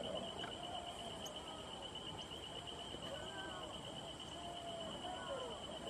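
Steady, rapidly pulsing high-pitched insect trill, with faint distant human voices calling out now and then.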